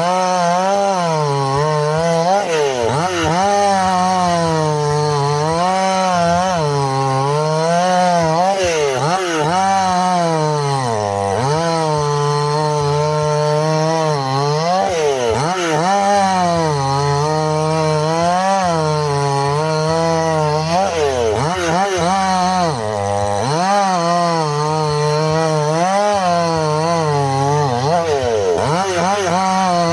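Two-stroke chainsaw cutting through wood, running continuously. Its engine pitch dips and climbs back every second or two as the chain loads up in the cut and frees again.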